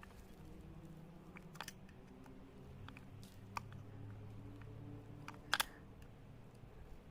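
Low steady hum with scattered light clicks and taps, the sharpest a quick double click about five and a half seconds in.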